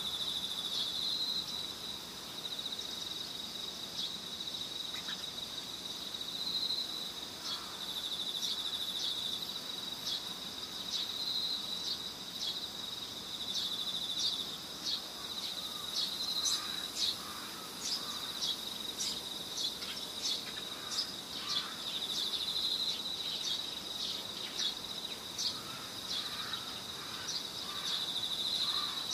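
Steady high-pitched insect trill, with brighter pulsing swells every few seconds, and scattered sharp clicks over it.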